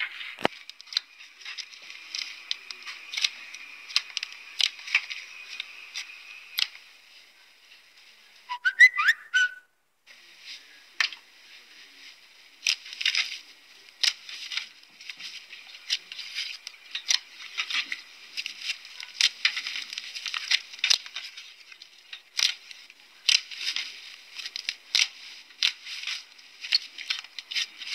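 Soft slime being pressed, poked and stretched by hand, making a dense run of small clicks and pops that sound thin and lack any low end. About nine seconds in, a brief squeaky whistle-like glide rises in pitch.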